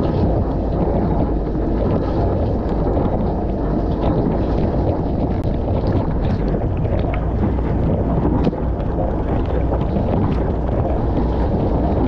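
Dishwasher wash cycle heard from inside the tub: water jets from the spray arms pelting the dishes and racks in a continuous rushing wash, with a steady low hum underneath.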